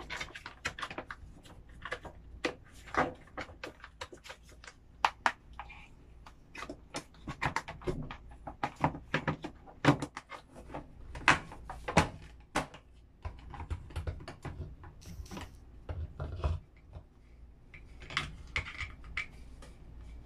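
Plastic parts of a bathroom exhaust fan being handled and fitted together: irregular clicks and knocks as the front cover is set onto the housing and the plastic fan blade is pushed onto the motor shaft.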